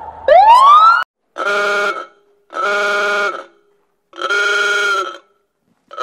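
A police siren gives one short rising whoop, then a horn sounds three long, steady blasts with short gaps between them.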